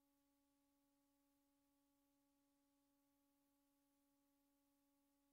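Near silence, with only a very faint steady hum.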